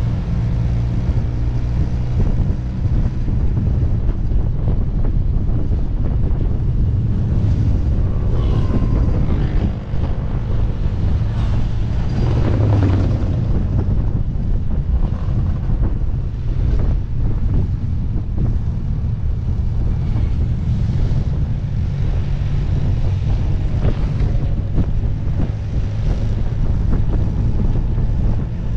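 Small motorcycle's engine running steadily while riding at low speed, with wind buffeting the microphone.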